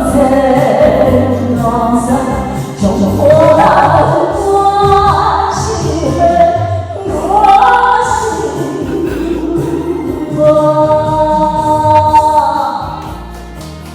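Music with singing: a ballad backing track with a sung melody line over a steady low accompaniment, fading somewhat near the end.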